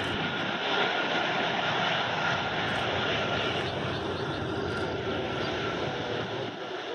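Airbus A330-200 jet engines (Rolls-Royce Trent 700) running loudly as the airliner rolls along the runway, a steady roar with a faint whine in it that eases off near the end.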